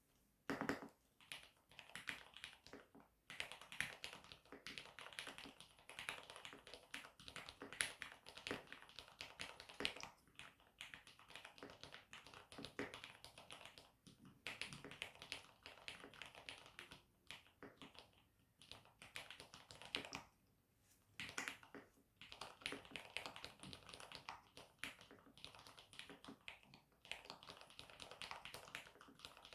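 Typing on a Mode Eighty mechanical keyboard with linear Cherry MX Black switches and its bundled keycaps: quick, continuous keystroke clicks and key bottoming-out, in runs broken by a few short pauses.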